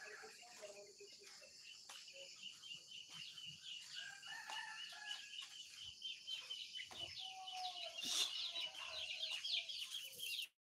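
Chickens clucking and calling, with many short high chirps throughout and a longer call about seven seconds in.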